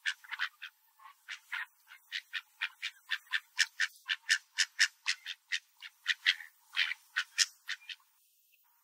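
Ducks quacking in a quick run of short, repeated calls, about four a second, stopping near the end.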